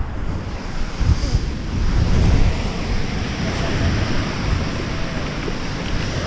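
Small, knee-high surf breaking and washing up the beach in a steady wash, with wind buffeting the microphone in uneven low rumbles.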